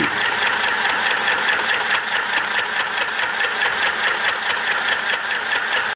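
Rich & Royal portable electric mini sewing machine running and stitching through cloth: a steady motor whir with a fast, even stitch rhythm, cutting off suddenly at the end.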